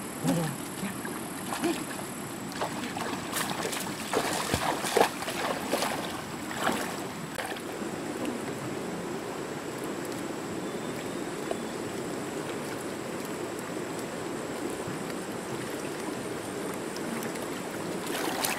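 Shallow stream water running, with splashes and sharp knocks from people wading and reaching into the water during the first several seconds, then a steady rush of water.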